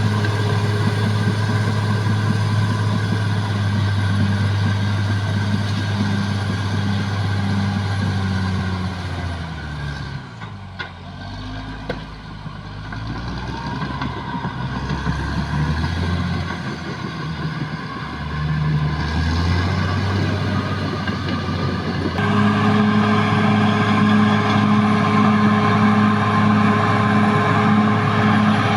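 Caterpillar D6R bulldozer's diesel engine working at steady high revs, dropping to lower, uneven running about ten seconds in, then picking up sharply back to full, loud revs a little past twenty seconds.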